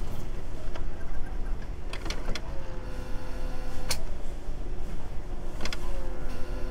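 HP inkjet printer's pump motor running during the head-priming (pumping) cycle. A motor whine drops in pitch and then holds steady, twice, with a few sharp mechanical clicks between. It is the pumping that draws ink through the freshly repaired printhead.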